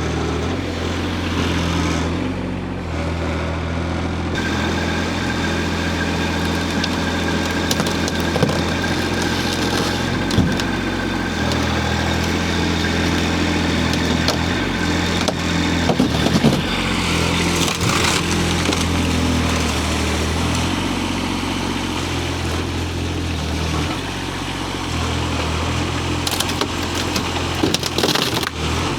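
Hightop HT20 Pro mini excavator's engine running steadily while the hydraulics are worked, with a thin steady whine coming in about four seconds in and a few scattered knocks.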